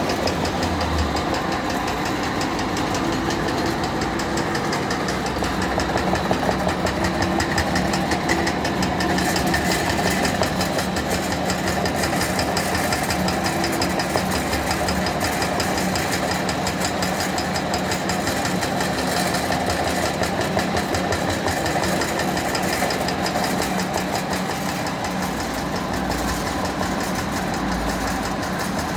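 Food-cutting machine running steadily with a fast, even rattle.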